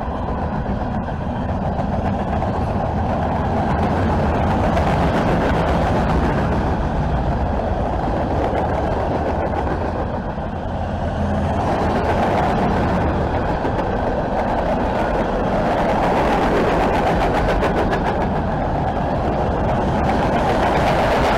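Norfolk Southern freight train's cars rolling past on the track: a steady rumble and rattle of steel wheels on rail, dipping briefly about ten seconds in.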